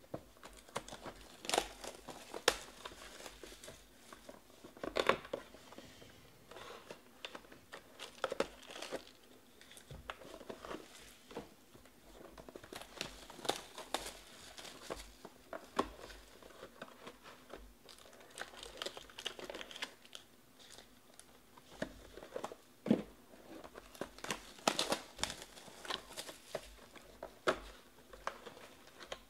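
Plastic shrink wrap being torn and crinkled off a cardboard trading-card hobby box, in irregular crackles and sharper rips.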